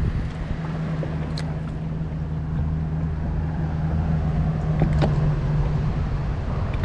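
A small boat motor running with a steady low hum, which stops a little before the end. Two faint clicks sound over it.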